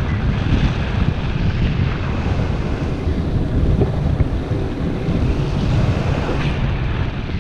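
Airflow from paraglider flight buffeting an action camera's microphone: a steady, low wind noise.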